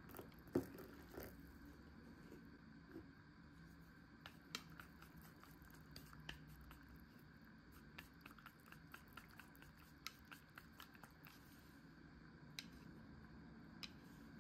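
Faint, scattered small clicks and soft squishes from eating nameko mushroom red miso soup out of a cup, with one sharper knock about half a second in.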